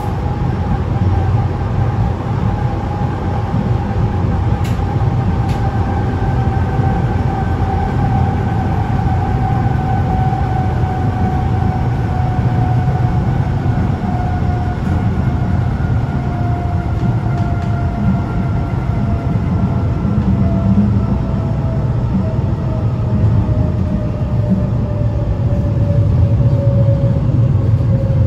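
Berlin S-Bahn class 485 electric train heard from inside the passenger car: a steady low rumble of wheels and running gear, with a thin whine that slowly falls in pitch as the train loses speed.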